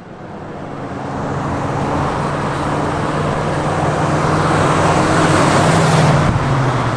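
Road vehicle noise that fades in and builds over several seconds, loudest about six seconds in, with a low steady engine hum under the noise.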